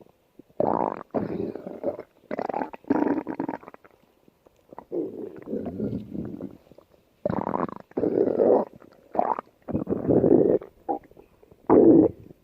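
Stomach growling: a series of short rumbles, each under a second, with brief pauses between them.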